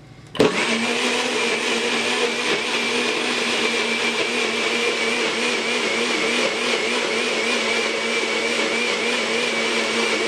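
NutriBullet blender motor switching on about half a second in and running with a steady whine, blending frozen banana, berries, açaí purée and almond milk into a thick mix.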